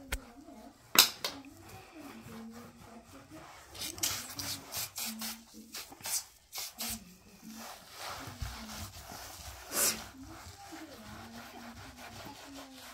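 A cloth wiping and scrubbing a surface during cleaning, in repeated rubbing strokes, with a few short sharp hissing bursts: one about a second in and one near ten seconds.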